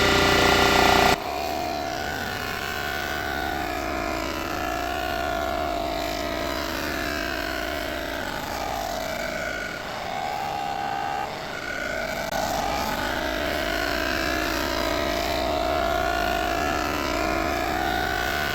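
Cylinder-head surfacing machine running, its cutter taking a light pass of a few thousandths across an aluminum cylinder head. A louder steady tone about a second in gives way to a continuous, slightly wavering machine sound.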